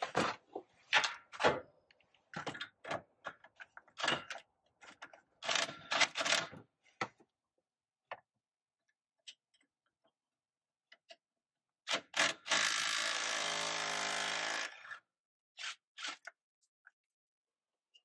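Hand tools clicking and knocking against metal fittings. Then a small powered hand tool, such as a cordless drill or driver, runs steadily for about two and a half seconds.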